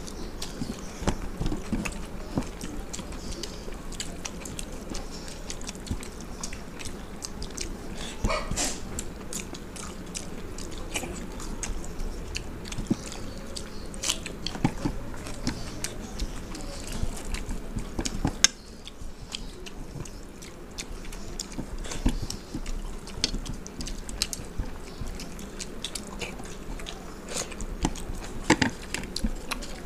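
Two people eating soaked panta bhat rice by hand: close chewing and wet mouth noises, with irregular clicks, crackles and occasional crunches as fingers work the wet rice on steel plates.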